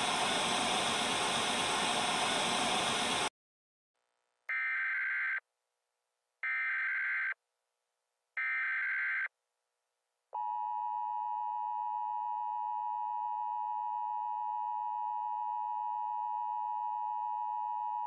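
Television static hiss that cuts off abruptly after about three seconds. It is followed by three one-second data bursts of an Emergency Alert System SAME header, about two seconds apart, and then the steady two-tone EAS attention signal, which starts about ten seconds in and holds.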